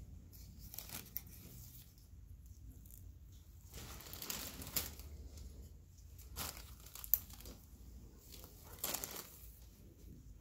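Intermittent crinkling and rustling, as of a paper surgical drape or wrapper being handled, in several short bursts with a sharp click about seven seconds in.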